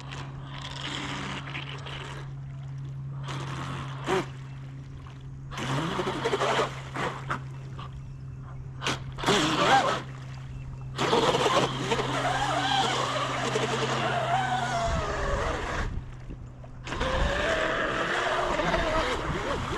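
Electric RC jet boat on a 6S LiPo under way: its motor and jet pump whine in short throttle bursts, then run longer with the pitch rising and falling as the throttle changes, dropping off briefly about three-quarters of the way through before picking up again.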